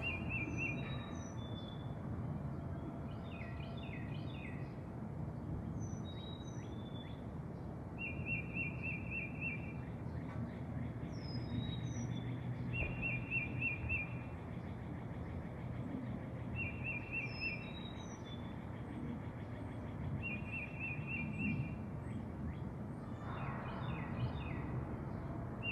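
Birds calling over a steady low outdoor rumble. A short buzzy trill repeats about every four seconds, with quick high chirps in between.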